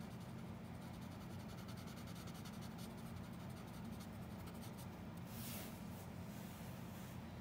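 Pencil tip working on paper in quick light touches, a dense run of small scratchy ticks, with a brief louder rasp about five and a half seconds in, over a low steady hum.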